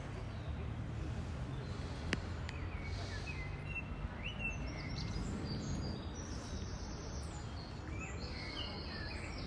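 City street ambience: a steady low rumble of traffic with small birds chirping short high notes again and again from about two seconds in. A single sharp click comes just after two seconds.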